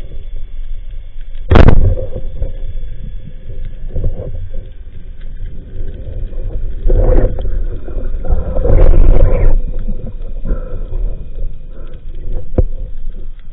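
Underwater shot of a Cressi Geronimo rubber-band speargun: one sharp crack about one and a half seconds in. After it comes muffled low rumbling and knocking from the diver handling the gun and line, heard through an action camera's waterproof housing.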